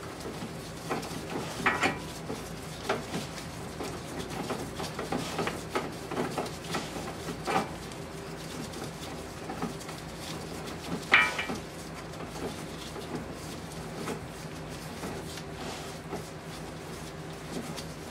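Light metallic clicks and clinks as an outer tie rod end is spun by hand onto a steering rack's threaded inner tie rod against its jam nut, with one sharper clink about eleven seconds in.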